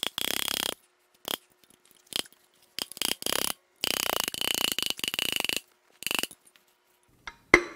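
Several bursts of rapid, ratchet-like clicking, then two sharp hammer blows just before the end, the start of a run of about three strikes a second, driving a piston and rod out of a rusted-solid big-block Chevrolet 454's cylinder bore.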